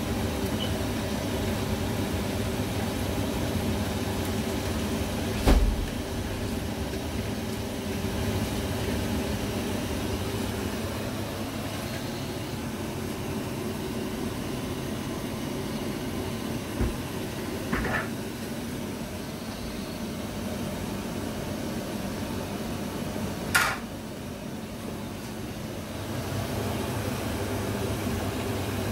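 Steady hum and rush of a large aluminium pot of water at a rolling boil on a gas stove, with a kitchen range-hood fan running. Three sharp knocks against the pot, the loudest about five seconds in, the others about eighteen and twenty-three seconds in.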